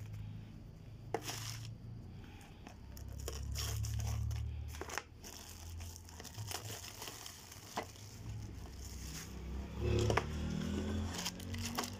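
Plastic chocolate-bar wrappers crinkling and rustling as a hand sorts through them, with scattered clicks and taps and a cardboard box being handled, over a low rumble that swells at times.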